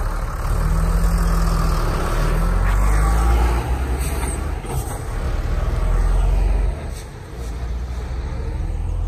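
Sinotruk dump truck's diesel engine running as the truck pulls away down the road. Its deep rumble drops in level about seven seconds in as it moves off.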